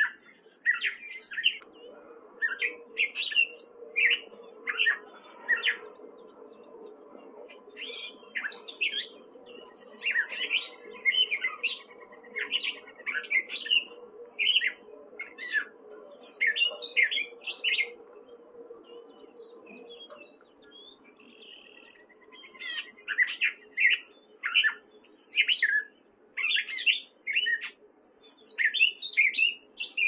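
Gray catbird singing: a long, rambling string of short, varied notes that change quickly from one to the next, broken by a few pauses of a second or two.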